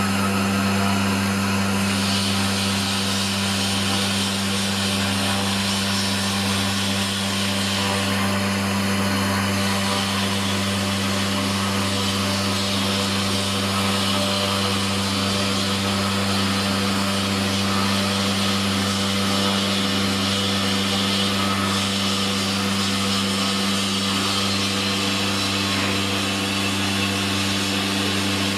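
Stone CNC router machining: a steady low hum under a continuous hiss from the spindle and cutting, shifting slightly in tone now and then.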